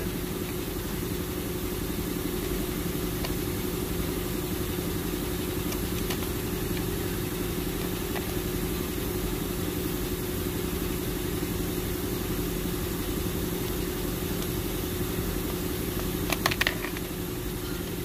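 Steady drone of an idling engine, with a brief cluster of clicks near the end.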